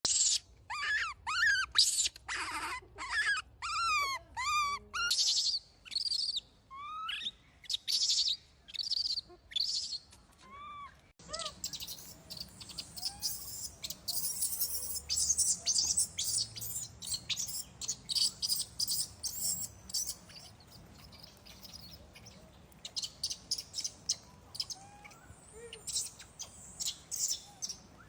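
A young macaque's repeated high-pitched, arching cries, each one rising and falling, in quick succession: the distress calls of a juvenile being weaned. About eleven seconds in the sound cuts to a busier run of short, high chirps.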